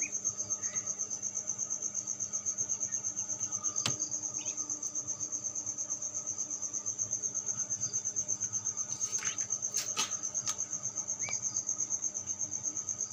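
Cricket chirping in a steady, fast, even pulse on one high note, with a few light clicks and knocks from eggs being handled about four seconds in and again near ten seconds.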